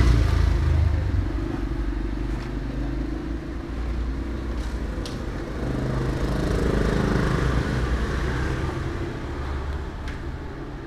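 Motor scooters passing, their small engines running, louder at the start and again from about six to eight seconds in.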